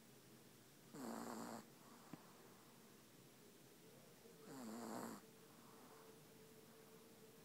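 Sleeping dog snoring, two snores about three and a half seconds apart.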